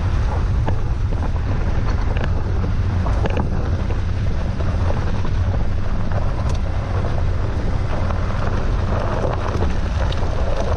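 Tyres of the Porsche Cayenne Turbo rolling over a dusty gravel track, picked up by a microphone mounted by the front wheel. Wind buffeting on that microphone gives a steady low rumble, and a few stones click against the car.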